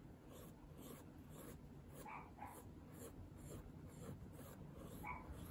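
Faint scratching of a pencil on sketchbook paper in a run of short strokes as small circles are drawn.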